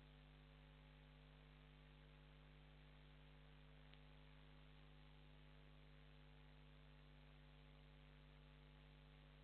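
Near silence: a faint steady electrical mains hum with hiss, and a single tiny click about four seconds in.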